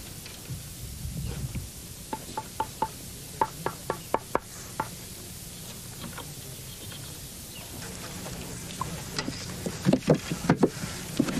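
A run of about a dozen short, sharp knocks and clicks, then a cluster of louder, duller wooden thumps near the end as a wooden chest is handled.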